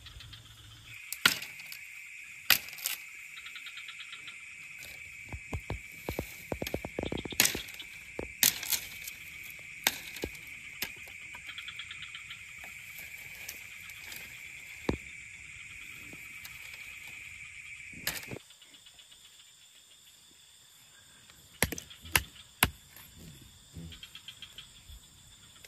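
A night insect's steady high-pitched trill, which stops abruptly about two-thirds of the way through, over fainter insect buzzing, with scattered sharp clicks and knocks.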